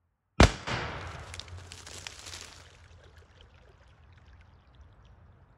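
A 258-grain hollow-point slug from a .50 calibre airgun strikes a plastic water jug with a single sharp crack. Water then splashes and gushes out of the holed jug, fading over about two seconds.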